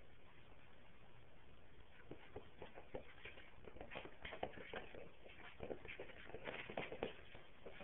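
Toy poodle scuffling on carpet as it tosses and pounces on a plush toy: a run of quick, soft scuffs and taps that grows busier from about two seconds in.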